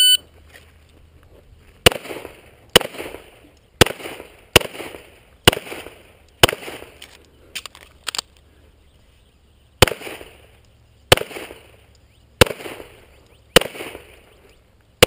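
Pistol shots fired on a USPSA stage: about a dozen sharp reports, roughly one a second, with a short echo after each. They come in two strings of about six, split by a pause of some three seconds that holds only a couple of faint clicks. A shot-timer beep ends just at the start.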